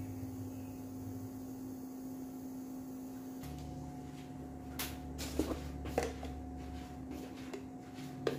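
A steady low hum, deepening a little about a third of the way in, with a few light clicks and knocks near the middle and end.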